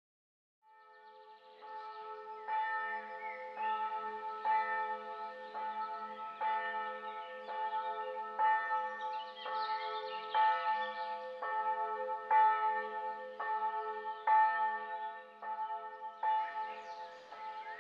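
Church bells ringing, fading in about a second in, struck about once a second with a continuous ringing tone between strokes.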